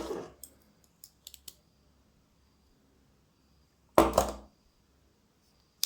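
Metal tools of a Bosch 12-in-1 multitool being folded out by hand: a few light clicks about a second in, a louder knock around four seconds in, and one sharp click near the end.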